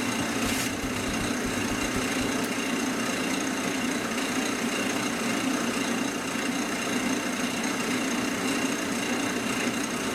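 Wood lathe running steadily at speed, spinning a canvas: a constant motor hum with a faint high whine over it.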